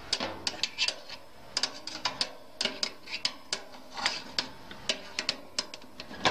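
Wire tray-lifter gripper clicking and clinking against a metal baking tray as the tray of bread rolls is gripped and eased out of the oven: a run of irregular light metallic clicks.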